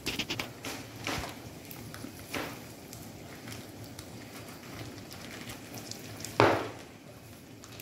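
Quiet cooking sounds as cooking oil is poured from a plastic pack over vegetables in a large pan, with a few soft knocks and one brief louder sound about six and a half seconds in.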